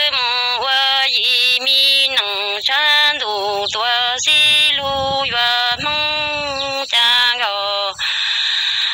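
Solo voice singing Hmong kwv txhiaj (improvised sung poetry), long held notes that waver and fall away at the end of each phrase, with a short breathy hiss near the end.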